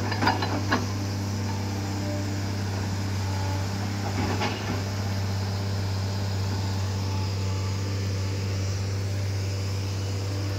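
JCB tracked excavator's diesel engine running steadily with a low, even hum. Short knocks and clatter of rock and soil under the bucket come in the first second and again about four seconds in.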